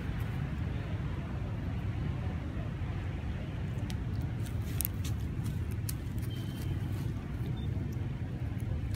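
Steady low rumble of motor vehicle engines, with a few light clicks in the middle.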